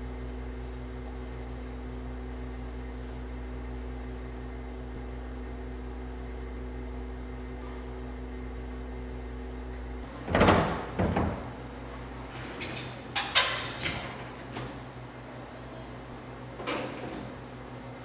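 A steady low hum with a few faint tones, then, about halfway through, a run of sudden metallic clatters and knocks as the gas fireplace's metal front screen is handled and taken off; the last knock comes near the end.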